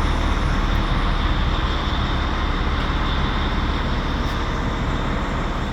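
A machine running steadily with a low hum.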